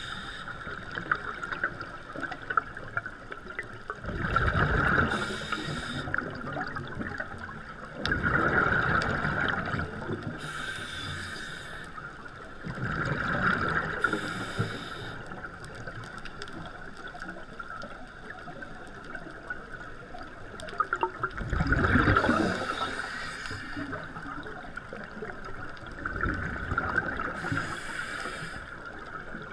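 Scuba diver breathing through a regulator underwater: a high hiss on each inhale, then a loud rumble of exhaled bubbles, five breaths spaced several seconds apart.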